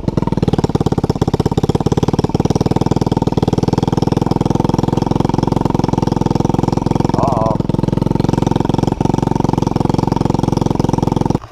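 Quad (ATV) engine running steadily at an even pace with a fast, regular firing pulse, heard from on the machine as it rides along a gravel trail; the sound cuts off suddenly near the end.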